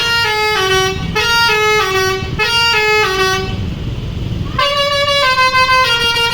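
Bus telolet horn, a multi-trumpet musical air horn, playing a quick stepping tune of several notes over a bus engine's rumble. It stops about three and a half seconds in, and a second, lower-starting tune begins about a second later.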